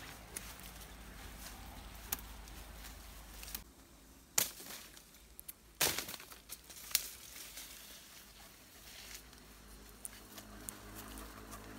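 Dry sesame pods and stems crackling and rustling as they are handled and broken open by hand, with sharp snaps about four and a half, six and seven seconds in.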